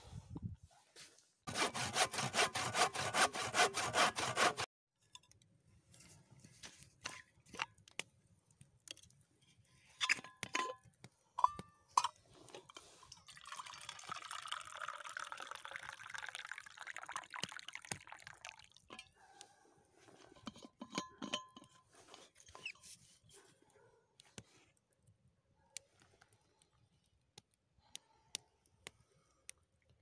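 Hot tea poured from a thermos into a metal mug, running for several seconds, with small clicks and knocks of the thermos and cup before and after. Near the start comes a brief, louder rapid rattling.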